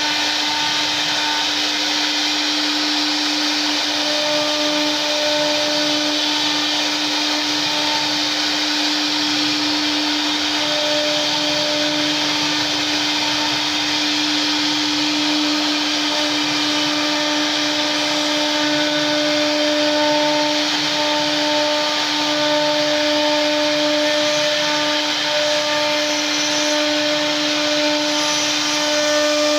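CNC wood router running steadily while carving wood: a constant spindle whine with faint overtones over an even cutting hiss.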